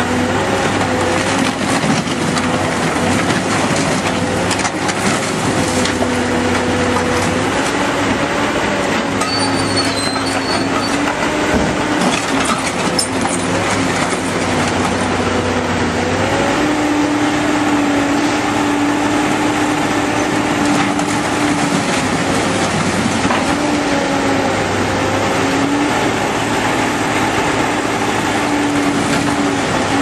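Heavy demolition machine running steadily, its engine and hydraulics changing pitch every few seconds under load, with metal scraping and crunching as its steel jaw tears through car wreckage.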